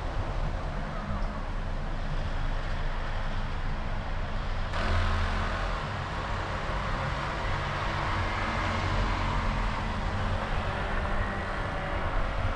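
Steady road noise from a Honda CR-V in motion: tyre hiss over a low engine and road rumble. About five seconds in, the hiss suddenly grows louder.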